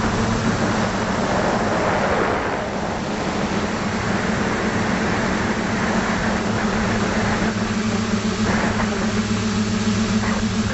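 The FPV drone's electric motors and propellers hum steadily, heard from its onboard camera, with wind noise rushing over the microphone and swelling now and then.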